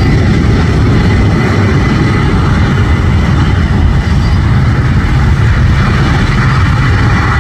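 Boeing 737-800's CFM56-7B turbofan engines at takeoff thrust during the takeoff roll: a loud, steady jet rumble.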